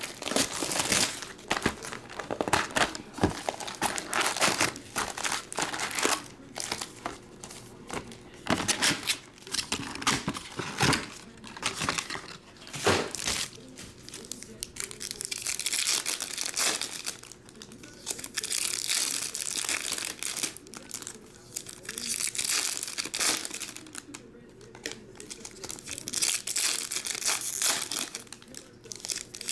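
Foil trading-card pack wrappers crinkling and tearing as the packs are handled and ripped open, with some cardboard box handling, in a run of irregular rustles and rips.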